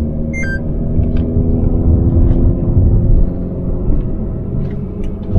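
Hyundai Veloster N's turbocharged four-cylinder engine droning steadily with low road and tyre rumble, heard inside the cabin while cruising at low speed. A short electronic beep sounds about half a second in.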